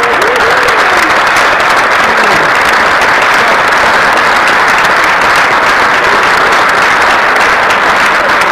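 Large crowd clapping loudly and steadily after a haka, with a few whoops and shouts in the first couple of seconds.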